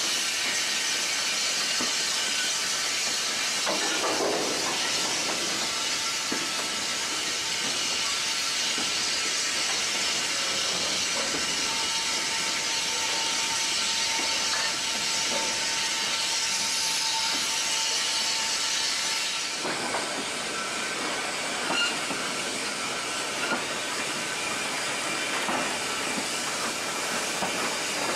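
Steady hiss of escaping steam from RSH National Coal Board No.49, a saddle-tank steam locomotive. The hiss eases about two-thirds of the way through, leaving a few metallic clanks.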